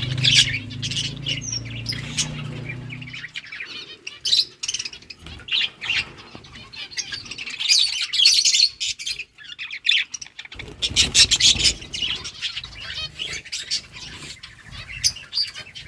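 A flock of budgerigars chirping and chattering, many quick high calls overlapping. A low steady hum runs under the birds for the first three seconds or so, then stops.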